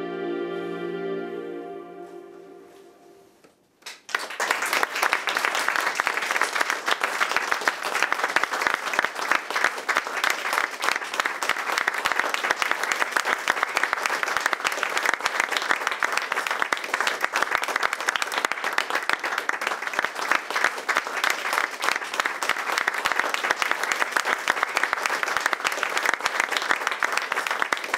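A song's music ends on a long held chord that fades out over about three and a half seconds. Then an audience breaks into applause, steady clapping that carries on.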